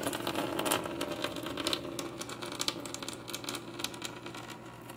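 Water poured out of a small plastic cup into a box, a dense patter of splashing that thins to a trickle and gets quieter toward the end.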